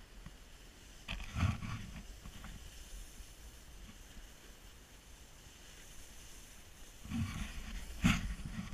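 Snowboard sliding over packed snow on a downhill run, with wind rushing across the camera microphone. Two louder surges of scraping and rushing come about a second in and again near the end.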